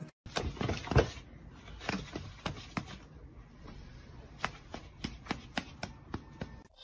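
A run of irregular sharp taps and clicks, a few a second, the loudest about a second in.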